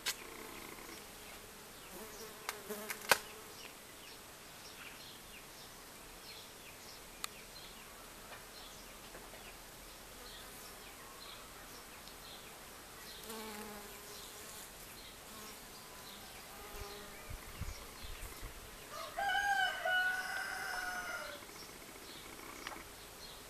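Honeybees buzzing as they fly among hollyhock flowers, with short passes of buzzing now and then. A sharp click comes about three seconds in. About 19 seconds in, a rooster crows in the background for about two seconds, the loudest sound.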